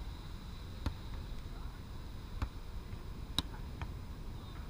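A few short, sharp slaps of hands hitting a volleyball, spaced about a second apart as in a rally, over a steady low rumble.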